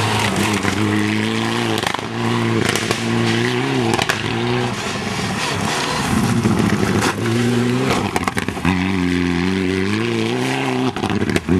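Mitsubishi Lancer Evo IX rally car's turbocharged four-cylinder engine revving hard on a gravel stage, its pitch climbing and dropping back several times as it shifts gears, with several sharp cracks mixed in.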